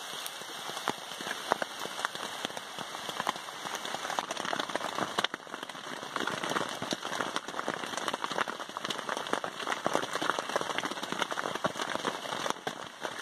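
Heavy rain falling as a dense, steady patter of countless drops. About five seconds in it is heard from inside a tent, the drops striking the wet tent fabric.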